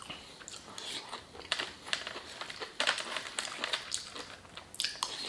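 Close-up chewing of crispy fried chicken, with irregular crunches and crackles of the breading.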